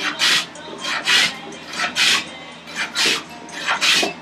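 Hand plane flattening a board in quick, regular strokes, each stroke a rasping hiss of the iron shearing off a shaving, about five strokes at a little over one a second.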